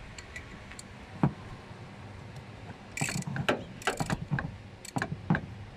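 Ratchet wrench and metal tools working on a car: a sharp knock about a second in, then a few short irregular bursts of clicking.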